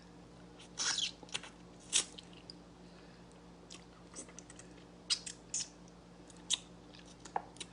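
Close-up mouth sounds of someone eating stewed fish head: scattered short wet clicks, smacks and sucking noises at irregular intervals, separated by quiet stretches.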